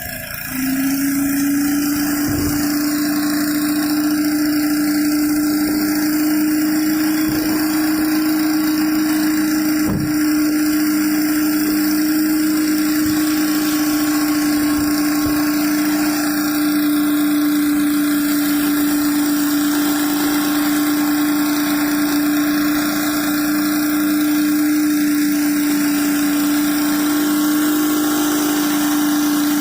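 Gas-engine pressure washer running under load, the high-pressure water spray hissing. About half a second in it swells up, its pitch rising slightly, and then it holds steady.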